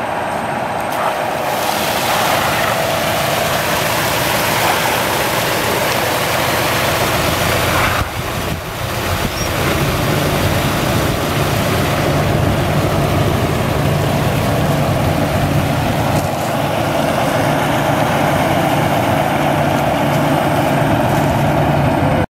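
Water gushing from a water truck's rear spray bar onto gravel, a steady rushing hiss that comes on about a second and a half in, over the truck's running Cummins ISM diesel and its PTO-driven spray pump. The flow dips briefly about eight seconds in, then a steady low engine hum joins the spray.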